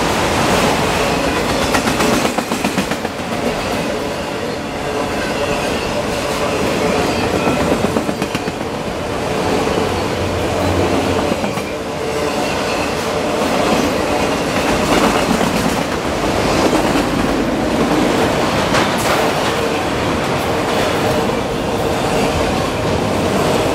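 Autorack freight cars rolling past close by: a steady rumble and rattle of steel wheels on the rails, with a quick clickety-clack as the wheels cross rail joints.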